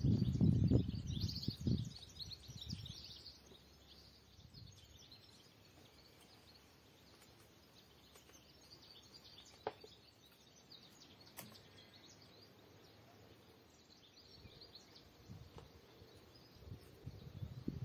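Small birds chirping and twittering in short high calls scattered throughout, over a low rumble that is loudest in the first two seconds and returns faintly near the end. Two sharp clicks stand out near the middle.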